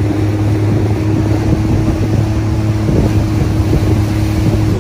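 Motorboat engine running steadily underway, a low even hum, with wind rushing over the microphone.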